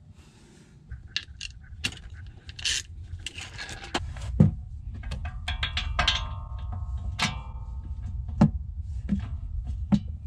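Metal tools and brake parts clinking, knocking and scraping against each other, with a short metallic ring about six seconds in. A low steady hum runs underneath.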